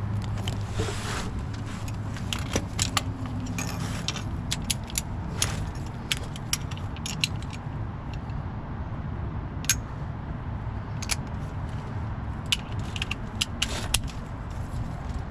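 Scattered metallic clicks and clinks in short clusters from a socket, extension and torque wrench as a knock sensor is tightened into the block of an LT1 V8, over a steady low hum.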